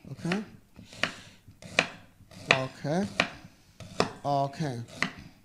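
Fresh ginger root being sliced with a knife on a wooden cutting board: a sharp knock of the blade through the ginger onto the board about every three-quarters of a second.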